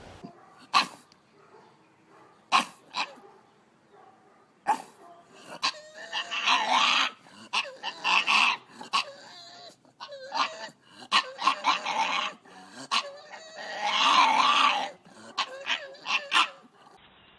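A dog vocalising: a few short, sharp barks, then two longer stretches of wavering, drawn-out vocal sound with quick yaps between them.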